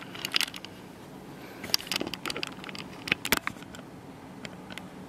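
Handling noise as a camera is set up and a plastic washing-machine tub is shifted: scattered irregular clicks, taps and small knocks. A cluster comes about two seconds in, the loudest knock about three seconds in, and fainter taps near the end.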